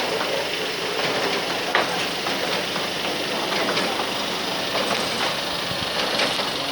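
Steady mechanical running noise with light, irregular knocks and ticks scattered through it.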